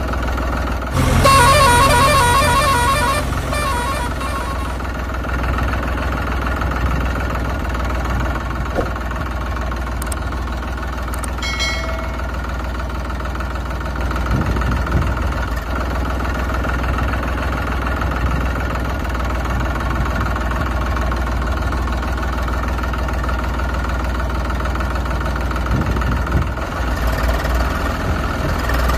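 Dubbed-in tractor engine sound running steadily, with a horn blaring for about three seconds near the start.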